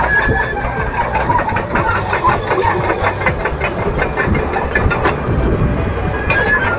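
Caterpillar D4H crawler bulldozer at work: diesel engine running under a rapid clanking of its steel tracks, with a high squeal from the undercarriage at the start and again near the end.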